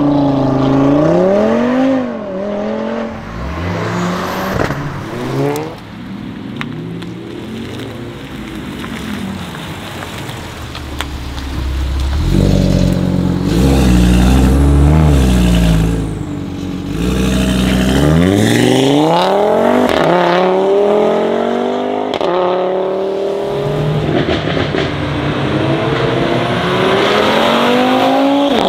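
Audi RS3 turbocharged 2.5-litre five-cylinder engines, several cars in turn, accelerating hard: the engine note climbs steeply and drops back at each gear change. About halfway through there is a few seconds of lower, steadier engine rumble before the revs climb again.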